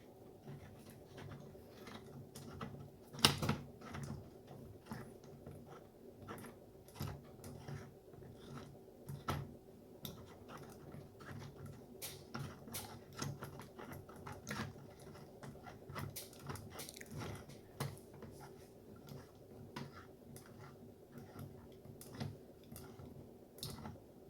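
Irregular clicks and knocks of parts being handled and fitted while a button maker is put together, with one sharper knock about three seconds in, over a faint steady hum.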